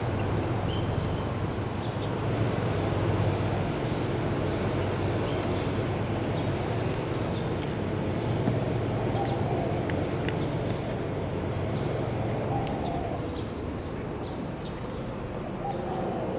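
Steady city background noise with a low rumble, like distant traffic, and a few faint ticks scattered through it.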